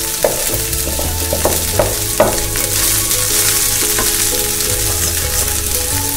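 Steamed poha (flattened rice) dropped into a pan of hot oil and onion tempering, sizzling as it is stirred and turned with a spatula. Several sharp clicks of the bowl and spatula against the pan come in the first two and a half seconds, and one more about four seconds in.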